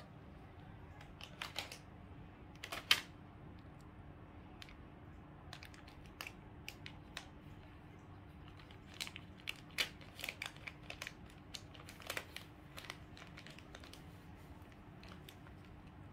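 Plastic packets and tubes crinkling and clicking irregularly as a cat paws and noses through them, in scattered bursts that come thickest in the middle and later part. A faint steady hum sits underneath.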